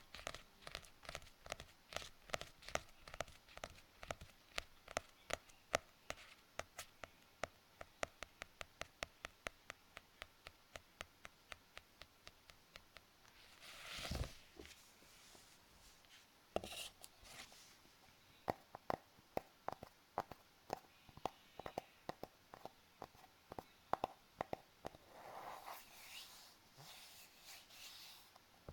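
Close-miked handling of small objects: a steady run of sharp clicks at about three a second, then a louder rustle about halfway through, more scattered clicks, and a scratchy rustle near the end.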